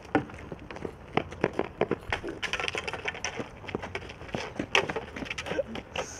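Street hockey sticks and sneakers knocking and scraping on asphalt in a string of irregular sharp clacks.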